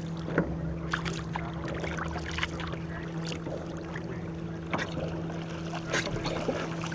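Canoe paddles dipping and splashing in choppy river water, irregular strokes about once a second with sharp knocks and splashes, over a steady low hum.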